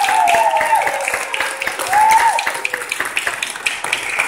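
A small audience applauding, with a few voices cheering over the clapping.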